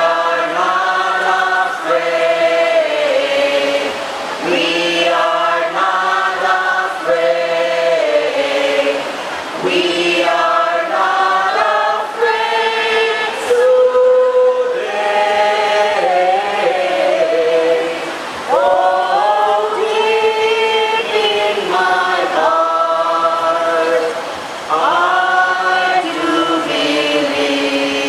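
A crowd singing together, holding notes in phrases of a few seconds with short pauses between them.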